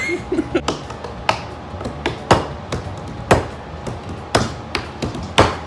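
Rhythmic hand claps and pats, a loud hit about once a second with lighter ones in between, as in a hand-clapping game.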